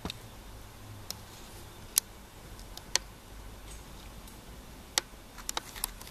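A handful of short, sharp clicks and ticks at uneven intervals over a faint low room hum, with a quick cluster of them near the end.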